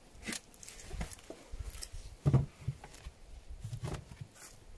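Handling noise around wooden beehives with footsteps: scattered short rustles and knocks, the loudest a thump a little over two seconds in.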